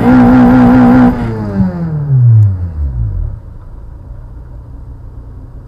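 A car engine revving hard once: the pitch climbs fast, holds high and wavering for about a second, then falls off over a couple of seconds back to idle, against steady traffic noise.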